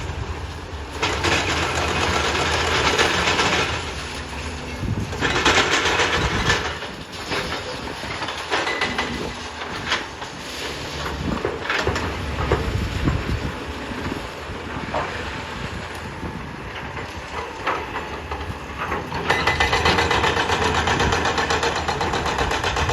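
Demolition machinery at work: a heavy engine running under loud bursts of crashing and grinding debris, with scattered sharp knocks of concrete and metal.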